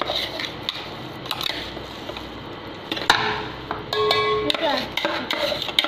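Metal spoon scraping and knocking against a steel pot and grinder jar while ground kabab mixture is scooped out, in scattered clicks and knocks.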